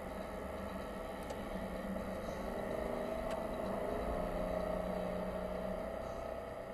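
Steady car cabin noise while driving: the engine's hum and road noise, with two faint ticks about two seconds apart.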